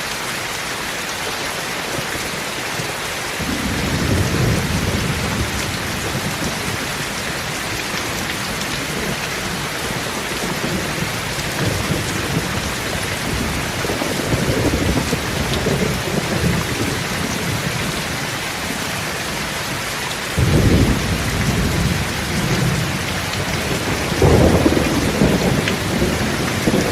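Steady rain with rolls of thunder: an even hiss throughout, with four low rumbles that swell and fade, the first about three seconds in and the loudest near the end.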